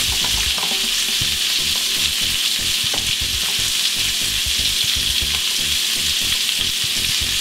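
Onion, pineapple slices and bacon sizzling steadily in hot oil in a frying pan.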